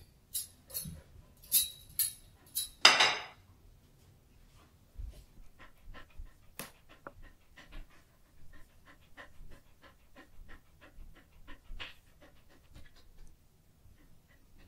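A few sharp clattering knocks in the first three seconds, the loudest about three seconds in. Then a Samoyed pants steadily, about three breaths a second.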